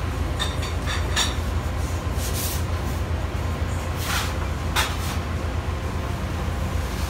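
Steady low hum of bakery kitchen equipment, with a few light clinks in the first second or so and short swishing scrapes about two and a half, four and five seconds in.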